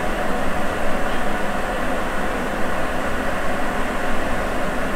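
Steady running noise of a Sapporo Municipal Subway 9000 series train heard from inside the car as it travels between stations, its rubber tyres rolling through the tunnel.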